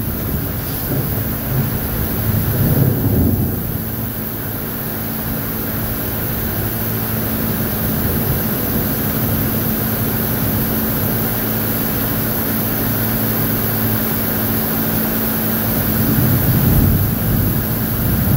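Heavy rain in a severe thunderstorm, a steady rushing noise with a constant low hum beneath it. Louder low rumbling swells come about three seconds in and again near the end.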